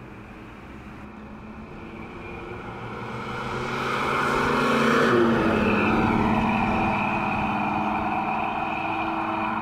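1964 Ford Thunderbird's 390 V8 driving past. It grows louder as it approaches, passes about five seconds in, then fades as it drives away, the engine note dropping slightly as it goes by.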